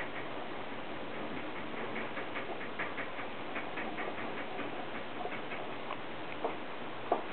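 Knotting cord being handled by fingers: runs of small quick clicks and creaks as the cords are threaded and pulled through the loops, with a couple of sharper clicks near the end, over a steady hiss.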